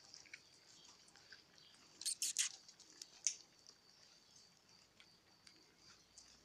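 Puppies eating from food bowls: a run of small wet chewing and clicking sounds, with a quick cluster of louder sharp clicks about two seconds in and one more a second later.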